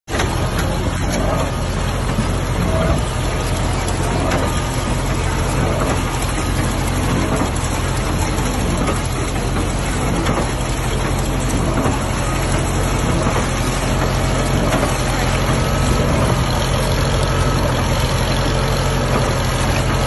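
International Harvester 55W baler working at full operation, with a tractor engine running steadily. The baler is being fed loose hay. Faint knocks can be heard from its machinery.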